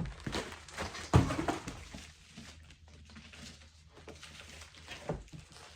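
Cardboard and styrofoam packing handled and pulled apart while a parcel is unpacked: irregular rustles and knocks, loudest about a second in and again near the end.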